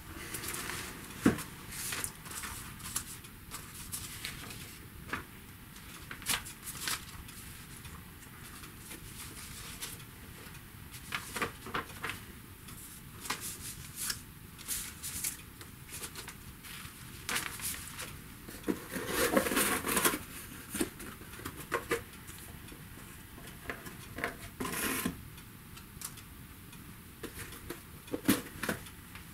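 Paper letters and envelopes being handled and shuffled on a table: scattered short rustles and light knocks, with longer rustling about twenty and twenty-five seconds in. A small cardboard box is lifted and moved near the end.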